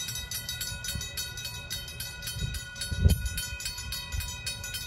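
Railroad crossing warning bell ringing with rapid, evenly repeated strokes while the crossing is activated. A low thump about three seconds in.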